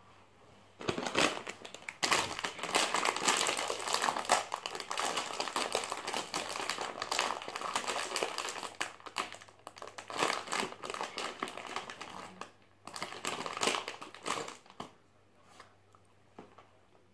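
Crinkly snack wrapper being unwrapped by hand, a dense crackling that starts about a second in, pauses briefly, then comes in one last burst and stops a couple of seconds before the end.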